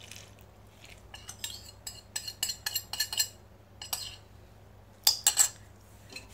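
Spoon and ceramic bowl clinking and tapping against a stainless-steel mixing bowl as dissolved yeast is poured and scraped onto flour: a quick run of light clinks in the middle, then two louder clinks about five seconds in.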